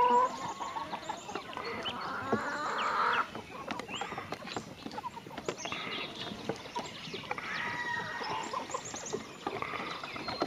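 Hens clucking and calling close up, with many quick sharp taps of beaks pecking grain off wooden boards.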